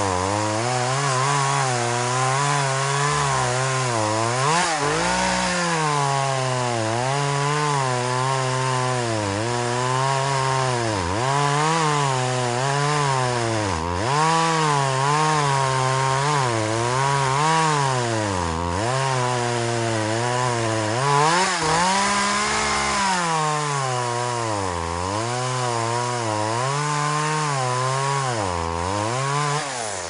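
Two-stroke gas chainsaw cutting through a dead tree trunk, running at high revs with its pitch dipping and recovering over and over as the chain bites into the wood.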